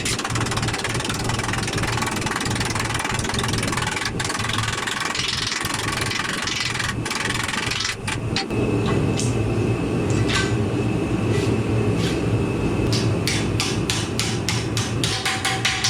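Electric power tool running steadily as it cuts sheet metal, its sound changing about halfway through. Rapid, evenly spaced taps start near the end.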